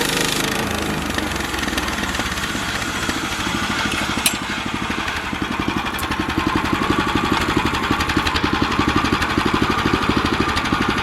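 Small gasoline engine of a band sawmill running steadily with an even, rapid firing beat. The higher hiss of the blade fades about half a second in, and the engine beat gets stronger from about six seconds. One sharp click a little past four seconds.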